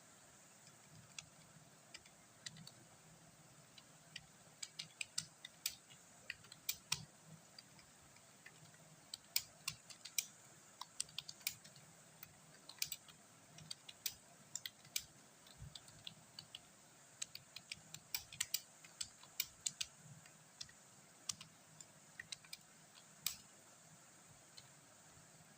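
Computer keyboard being typed on, faint: keystrokes click in uneven runs broken by short pauses.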